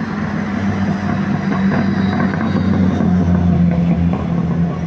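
Medium bus's diesel engine running steadily at low revs, getting a little louder around the middle.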